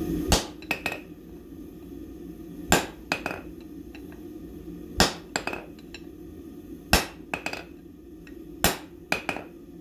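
Hand hammer striking red-hot half-by-one-inch steel bar stock laid over the anvil's edge, forging a step for box jaw tongs. There are five heavy blows about two seconds apart, and each is followed by two lighter taps.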